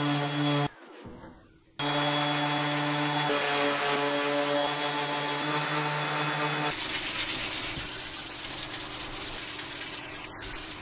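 Random orbital sander running against the wood of a dresser, a steady motor hum that cuts out briefly about a second in and then resumes. About two-thirds of the way through, the hum gives way to a rougher scrubbing sound.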